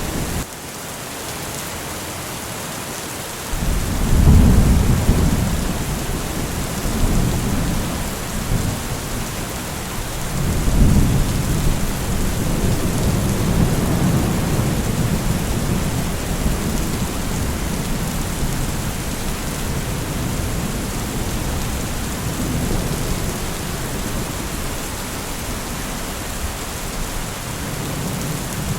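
Steady rain with rolling thunder: a low rumble swells in about four seconds in and again about eleven seconds in, then rumbles on more softly under the rain.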